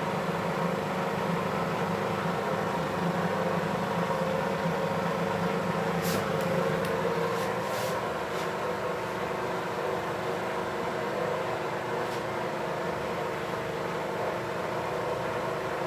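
Beko 5 kg washing machine running with a steady motor hum, with a few sharp clicks or knocks from the machine about six to eight seconds in and once more near twelve seconds. The drum is turning an unbalanced load.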